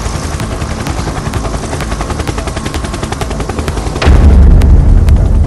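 Small helicopter's rotor chopping in rapid, even beats as it flies over. About four seconds in, the sound jumps suddenly louder into a heavy low rumble from the rotor close by.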